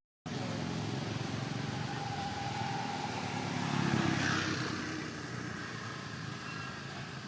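A motor vehicle going past, getting louder to a peak about four seconds in and then fading.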